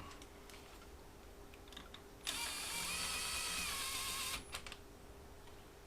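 A small power tool's electric motor runs for about two seconds, starting and stopping abruptly, with a faint steady hum behind it.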